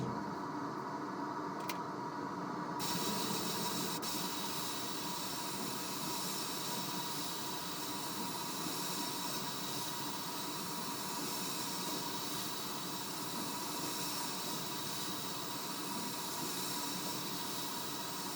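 Steady hissing machine or air noise with a faint, even hum of a few steady tones; the high end of the hiss comes in about three seconds in.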